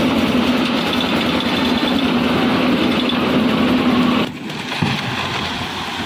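Diesel engine of a concrete lift mixer machine running steadily under load. About four seconds in, it cuts off abruptly to quieter site noise.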